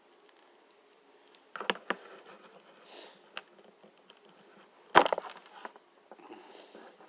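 Small plastic clicks and taps as an accessory is handled and pushed into an action figure's hand, starting about a second and a half in, with the sharpest click about five seconds in.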